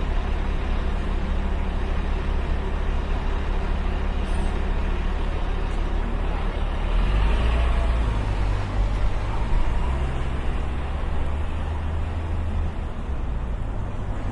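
City street traffic noise, with the low engine rumble of a heavy vehicle growing louder about halfway through and easing off near the end.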